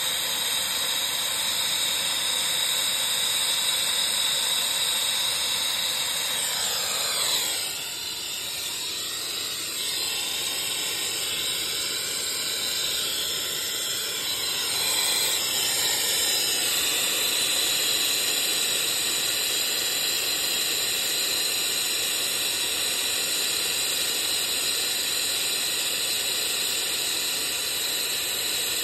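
Brazing torch flame hissing steadily on a copper line joint; the torch is shut off about seven seconds in, and a steady hiss carries on afterwards.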